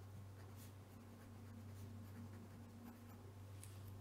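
Faint scratching of a pen writing on paper, in short strokes over a steady low hum.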